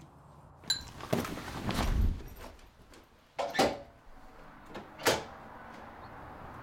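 Door knocks and thuds: a click, a dull low thump about two seconds in, then two sharper knocks at about three and a half and five seconds.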